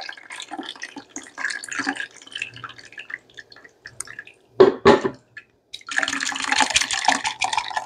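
Thick blended chile sauce pouring and dripping through a stainless mesh sieve into a plastic bowl. Just before the middle come two sharp knocks as the blender jar is set down on the counter, and near the end a louder stretch of splashing and swishing as the sauce drains through the sieve.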